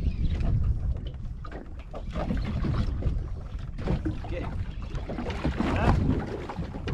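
Wind and sea noise on a small fishing boat: a dense, uneven low rumble of wind buffeting the microphone and water against the hull, with brief faint voices in the background.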